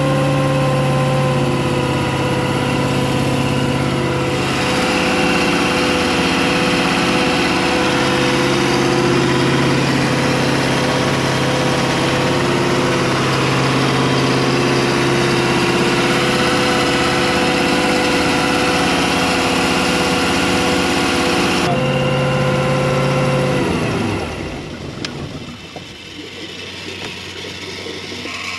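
Brand-new built 350 Chevy V8 marine engine running steadily at a fast idle on its first break-in run. About 24 seconds in, its pitch falls and it winds down.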